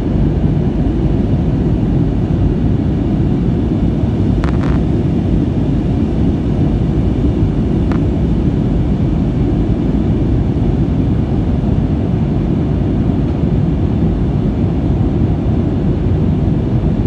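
Steady, loud cabin drone of an Airbus A321neo in flight: the hum of its Pratt & Whitney PW1100G geared turbofans and the rush of air over the fuselage, heard from a window seat. A brief clink sounds about four and a half seconds in, and a faint tick near eight seconds.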